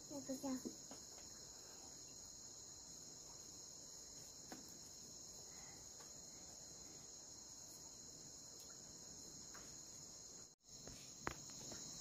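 Steady, high-pitched chorus of insects, a continuous shrill drone with a few faint clicks under it; it cuts out for an instant about ten and a half seconds in, then resumes.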